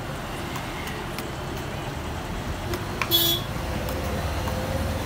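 Street traffic: a vehicle's engine runs low and grows louder from about two seconds in, with one short horn toot about three seconds in.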